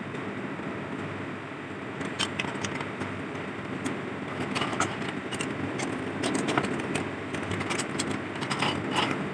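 Steady background noise with a series of short, sharp clicks and light rattles starting about two seconds in, like small hard parts being handled.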